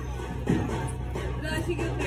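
Background music with steady low notes.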